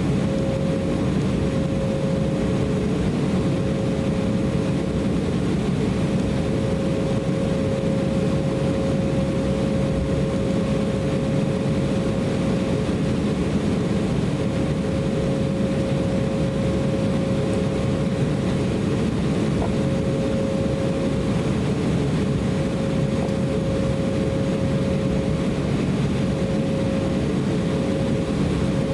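Cabin noise inside an Embraer E190 airliner as it taxis: its GE CF34-10E turbofan engines running at low taxi power, a steady rumble with one steady hum over it.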